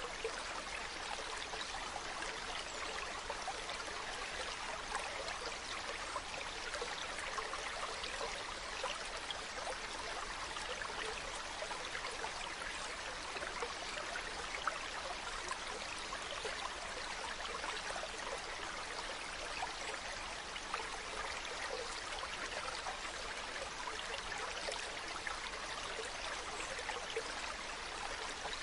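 Mountain stream running steadily over rocks, a continuous babble with small splashes and trickles.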